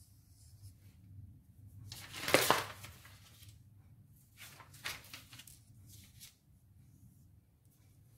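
Sheets of paper rustling and sliding over a table as a drawing is lifted away and a fresh sheet laid down: one loud rustle about two seconds in, then softer rustles around five seconds.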